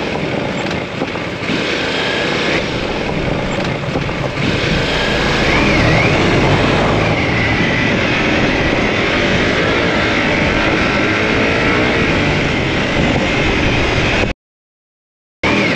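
Ducati DesertX twin-cylinder engine running under way on an off-road ride, with dense wind and riding noise over the camera microphone. The sound drops out completely for about a second near the end.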